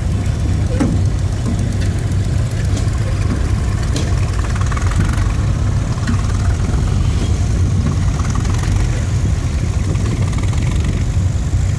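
Ferguson TE20 tractor engine idling steadily.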